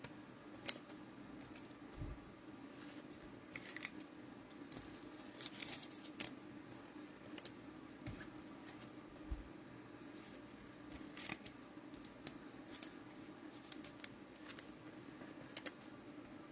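Faint, scattered clicks and crinkles of trading cards and cellophane pack wrappers being handled, with a few soft thumps on the table, over a steady low hum.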